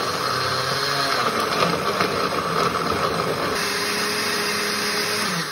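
Countertop Oster blender motor running steadily at speed, puréeing roasted tomatoes and chiles with water into a salsa. Near the end it is switched off and the motor winds down with a falling pitch.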